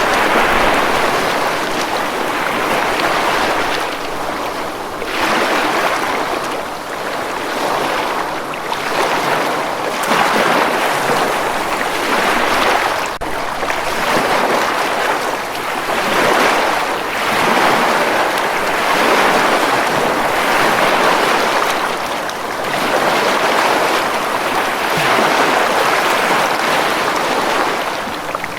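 Ocean surf breaking and washing up a beach, a steady rushing hiss that swells and eases every two to three seconds as waves come in.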